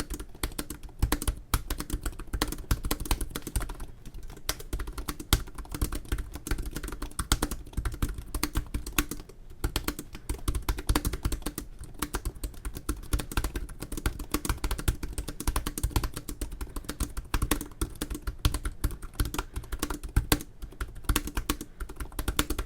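Fast continuous typing on an HP Spectre x360 (early 2017) laptop keyboard: a quick, irregular stream of key clicks from its low-travel keys.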